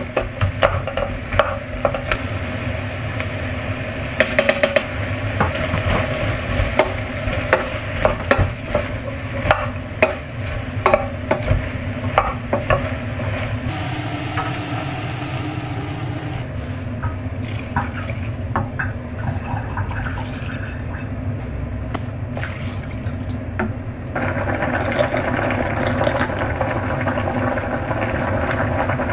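Wooden spatula stirring chopped vegetables as they fry in a stainless steel saucepan, knocking against the pot many times in the first half. Stock and water are poured in about halfway through, and near the end the soup is boiling steadily.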